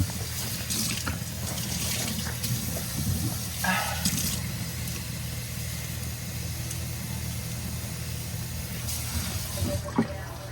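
Water running steadily with a rushing hiss, with a few short knocks here and there.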